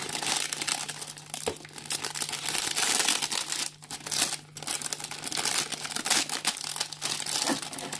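Clear plastic bag crinkling as it is slit open and a plastic model kit runner is pulled out of it. It crackles almost continuously, with two short lulls near the middle.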